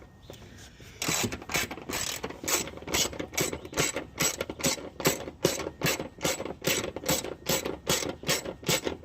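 Hand ratchet wrench being worked back and forth to remove a bolt, in quick repeated clicking strokes about three to four a second, starting about a second in.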